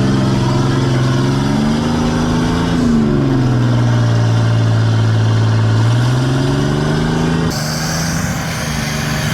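Off-road vehicle engine running under load on a rocky trail, its pitch rising and falling as the throttle comes on and off. The engine note changes abruptly about three seconds in and again near the end.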